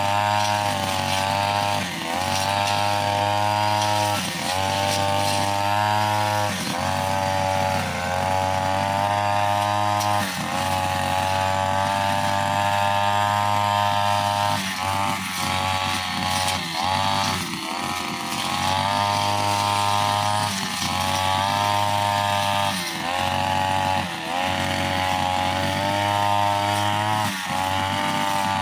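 Backpack brushcutter engine running at high speed while its blade cuts grass and ferns. Every two to three seconds the pitch dips briefly and then climbs back.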